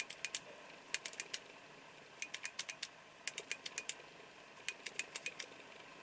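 Tail-cap push button of a Ledlenser P5R LED torch clicking in rapid runs of three to five presses, about five runs in all: pressing it quickly to cycle through the modes to the strobe.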